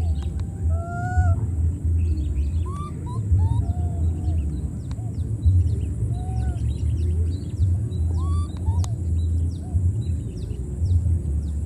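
Low wind rumble on the microphone, with scattered short arched whistled animal calls and, from about a third of the way in, a run of quick high descending chirps about two a second.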